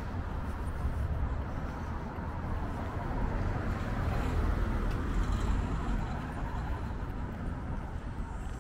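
Street traffic going by: a steady wash of car noise with a low rumble, swelling a little about halfway through as a vehicle passes.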